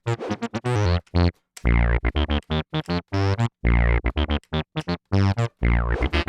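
Diosynth electronic wind synthesizer playing a buzzy, bass-heavy synth preset: a run of short detached notes with a few longer held ones in between.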